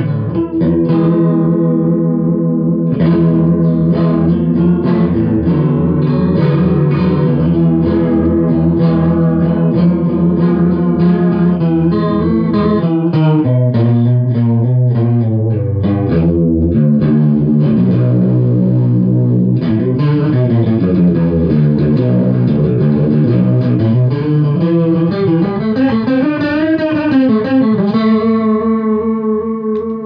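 Electric guitar playing sustained chords through a home-built copy of the Electro-Harmonix Small Clone chorus pedal into an amp and Marshall 4x12 speaker cabinet. The notes waver slowly in pitch at times, giving a shimmering chorus sound, with a light drive. The chords ring out and die away near the end.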